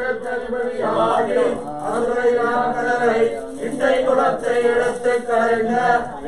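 Male voice chanting Hindu mantras in a continuous recitation during puja worship.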